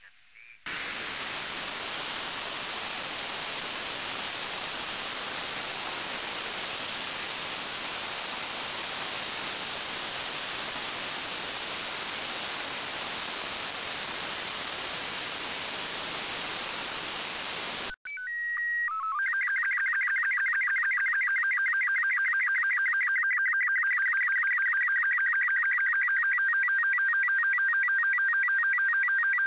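FM receiver static hiss with no signal, which cuts off abruptly about eighteen seconds in. Then a slow-scan television (SSTV) transmission relayed by the LAPAN-A2 (IO-86) satellite: a few short steady header tones, followed by the warbling image tones with a rhythmic tick of line sync pulses as a picture comes in.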